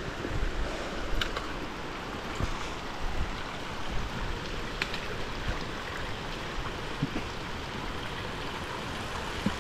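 Mountain stream rushing steadily: an even wash of running water.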